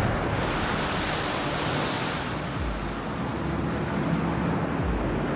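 Ocean surf: waves breaking and washing ashore, a wave surging up loudest from about half a second to two seconds in.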